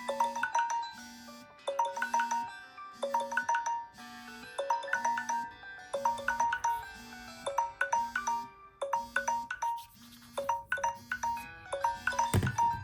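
Samsung smartphone alarm tone playing: a short melody of bright electronic chime notes looping over and over, with a low note pulsing about once a second. A brief thump sounds near the end.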